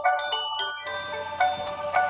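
Background music: a melody of ringing struck notes on mallet percussion, a new note every few tenths of a second.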